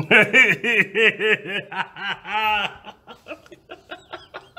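A man laughing hard: a quick run of rapid 'ha-ha' bursts, then a longer drawn-out laugh note about two seconds in, tailing off into breathy snickers.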